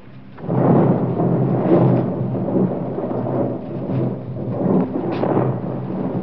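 Rolling thunder that breaks suddenly about half a second in, then rumbles on with several swells and slowly dies away.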